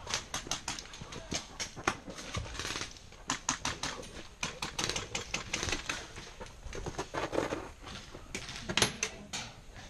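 Irregular sharp clicks and clacks, several a second, with a few louder knocks near the end.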